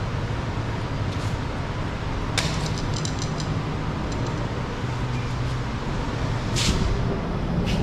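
A steady low outdoor rumble, like traffic or wind on the microphone, with a few short sharp clicks about two and a half seconds in, near six and a half seconds and again near the end. The clicks are from work on a car door trim panel being pried off its plastic clips.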